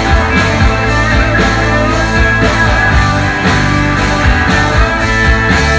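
A live rock band playing loudly: two electric guitars, an electric bass guitar and a drum kit together.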